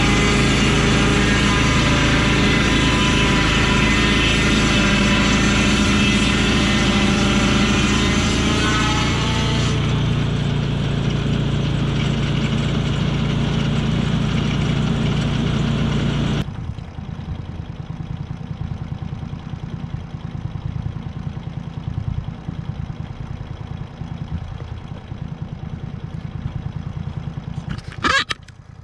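Lucas swing-blade sawmill's petrol engine running hard as the blade cuts along a blackbutt hardwood log, easing off about ten seconds in. About halfway the sound drops abruptly to a quieter, rougher engine idle, with a brief loud noise near the end.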